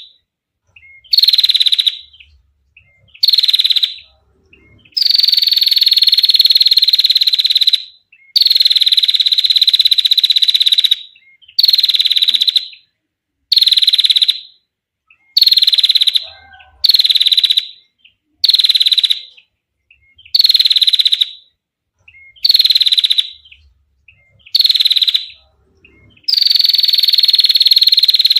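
Female prinia giving its rapid buzzing trill ('ngetir') call, repeated about thirteen times: most calls last about a second, a few are drawn out to two or three seconds, with short silences between.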